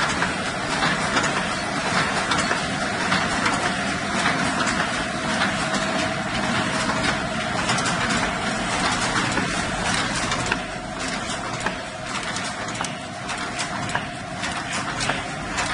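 Paper plate making machine running, a steady mechanical clatter full of rapid clicks over a constant hum; it turns a little quieter about ten seconds in.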